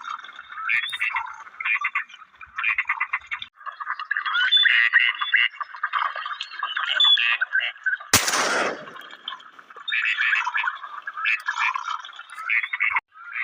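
A single shotgun shot about eight seconds in, over a dense, continuous chorus of short chattering animal calls.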